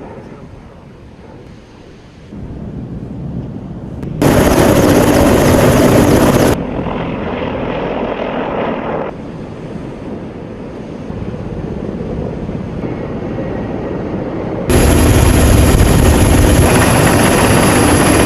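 Military aircraft engines running loud, in a run of short clips that change abruptly, with the loudest stretches about four seconds in and from about fifteen seconds in carrying a high steady whine.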